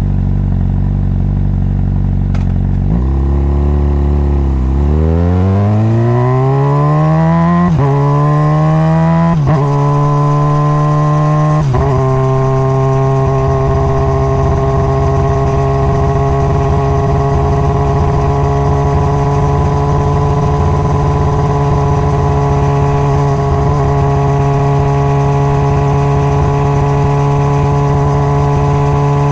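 Honda CBR600RR inline-four motorcycle engine heard from onboard: running steadily at first, then pulling away with the pitch rising and dropping through about four quick upshifts. It settles into a steady cruising note from about twelve seconds in.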